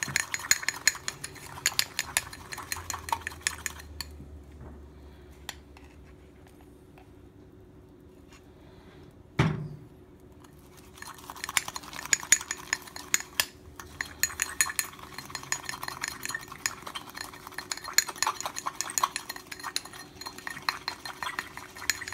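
A metal spoon rapidly whipping a coffee crema mixture in a drinking glass, a fast run of clinks against the glass. It stops for several seconds, one thump falls in the gap, then the clinking starts again and runs on.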